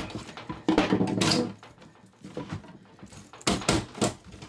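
A screwdriver prying at the lid seam of a small steel BillConch biometric gun safe: metal knocking and scraping. There is a sharp knock at the start, a longer scrape about a second in, and a quick run of knocks near the end.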